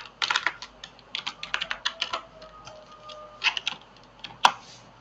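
Typing on a computer keyboard: quick runs of keystrokes with short pauses between them, and a single sharper click near the end.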